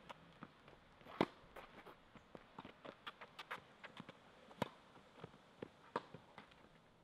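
Tennis being played on court: a run of sharp, irregular taps and pops from the ball being struck and bouncing, with footsteps between, the loudest hits about a second in and twice more later.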